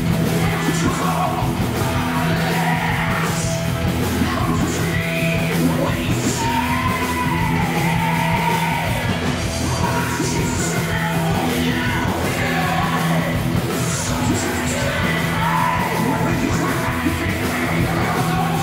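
Live rock band playing: a singer yelling the vocal line over electric guitars and a drum kit with repeated cymbal crashes.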